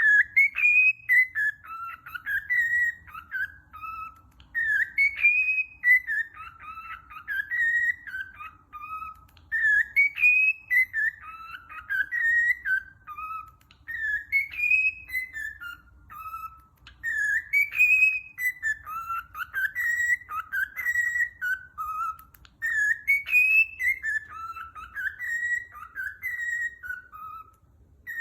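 Pet bird whistling a tune of clear notes that rise and fall, the same phrase repeated over and over about every four to five seconds.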